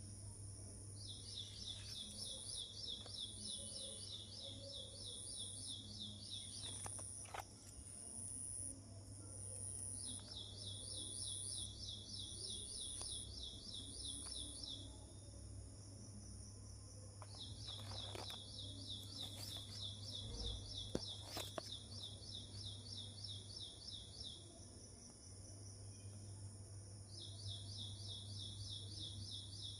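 Birdsong ambience: a rapid, evenly pulsed high trill repeating in four runs of several seconds each, with a fainter, higher chirp repeating about twice a second in the first half, over a steady low hum.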